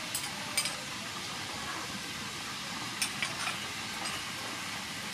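Chili sauce sizzling in a frying pan of hot oil, a steady hiss, with a few light clicks of a spoon against a bowl.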